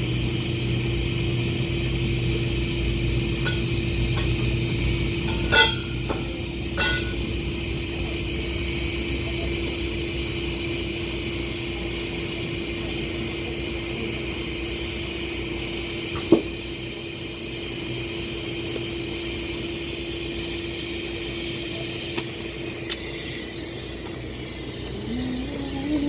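Welding arc on carbon steel in the horizontal position: a steady hiss over a constant hum, with a few sharp clicks about five, seven and sixteen seconds in.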